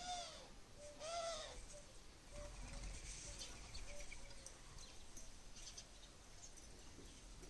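Indian peafowl (peacock) calling: two loud, arching wailing calls, one at the start and another about a second later. Faint chirps of small birds follow.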